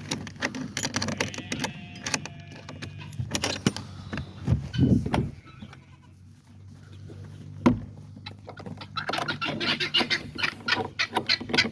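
Farm animals calling, with a dense run of rapid repeated calls near the end, over clatter, knocks and a steady low hum.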